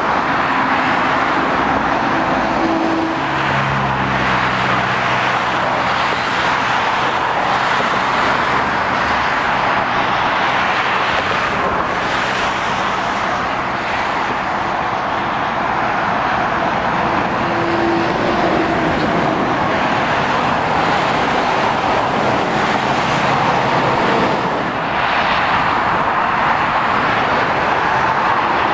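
Steady road traffic: the continuous tyre roar of lorries and cars passing, with the drone of a heavy diesel lorry engine standing out for several seconds a few seconds in.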